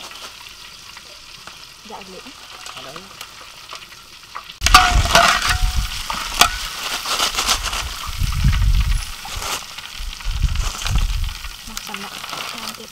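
Batter-fried chicken strips in a large wok of hot oil, sizzling faintly at first. About four and a half seconds in it turns suddenly louder, with a wire skimmer and a metal spatula clicking and scraping against the wok.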